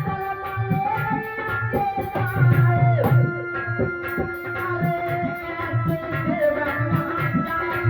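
Bhagat-style devotional folk music: a tabla-like hand drum plays a quick, busy rhythm under held melody notes that bend in pitch now and then.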